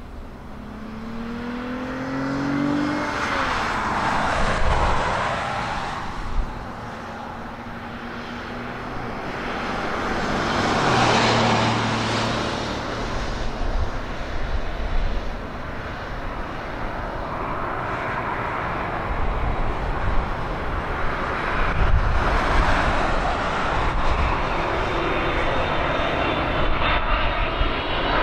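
Jet aircraft engine noise at an airport, swelling and fading in waves, with a tone rising over the first few seconds. A high engine whine builds near the end.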